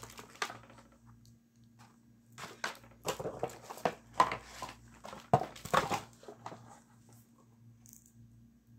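Cardboard packaging and paper being handled: rustling, crinkling and sharp knocks, bunched in the middle, over a faint steady hum.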